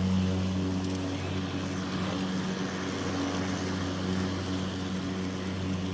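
Milwaukee M18 Fuel 21-inch battery lawn mower running steadily, its motor and spinning blade giving an even low hum over a whooshing hiss.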